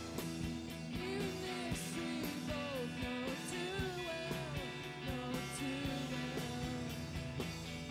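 Rock music with electric guitar and a singing voice over a steady drum beat.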